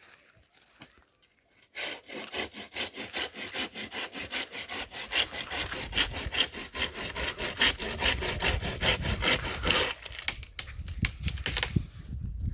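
A hand saw cutting through firewood in fast, even strokes, starting about two seconds in. The strokes pause briefly near the end and then start again.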